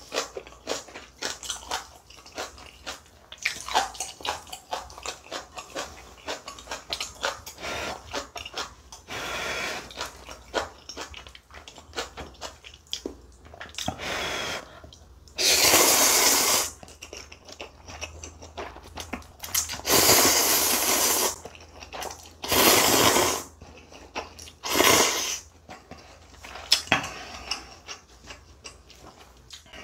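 Close-miked eating of instant ramen: many small clicks of chewing and chopsticks, then four loud slurps of noodles in the second half.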